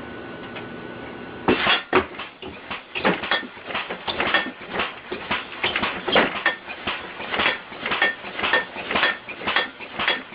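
Compressed-air-powered alarm rig clattering: a fast, loud run of metallic clanks, about two or three a second, starting about a second and a half in after a faint steady tone.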